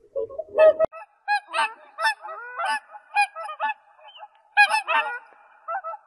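A group of waterfowl honking, beginning about a second in: many short, overlapping calls, some rising in pitch.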